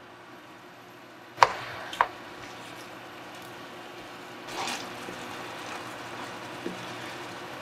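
Spicy webfoot octopus sizzling as it stir-fries in a frying pan. Two sharp clinks of the pan lid come about a second and a half and two seconds in, then a wooden spatula scrapes and stirs through the sauce about four and a half seconds in.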